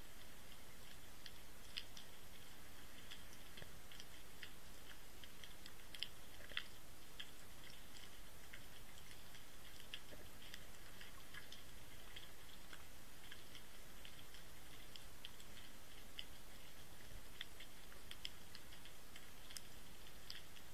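Underwater ambience heard through the sealed housing of a Water Wolf inline camera resting on the seabed: a faint, steady hiss with many irregular small clicks and ticks, a few slightly louder.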